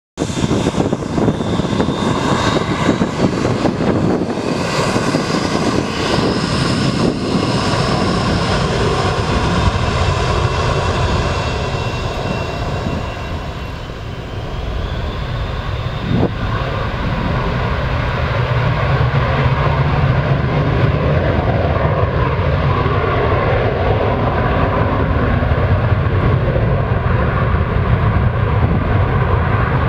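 Meridiana MD-80-series airliner's rear-mounted Pratt & Whitney JT8D turbofans at takeoff power, with a whine that rises over the first several seconds and then a steady loud jet noise as the aircraft rolls away down the runway.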